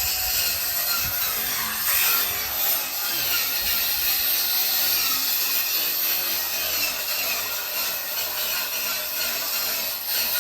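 Wood being sawn by hand, a continuous scraping noise without pause.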